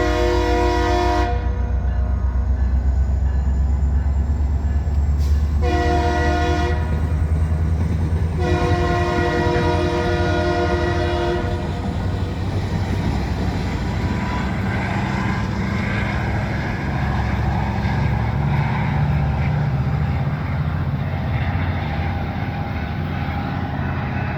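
Train horn sounding a chord in three blasts: one ending about a second in, a short one near six seconds, then a longer one from about nine to twelve seconds, the close of a long-long-short-long grade-crossing signal. Under and after the horn the train's steady low rumble and wheel noise go on as it passes.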